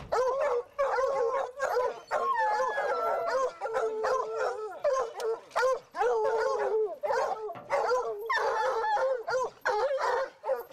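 A pack of hunting hounds barking and baying together: many overlapping calls, mostly short, some drawn out with a bending pitch.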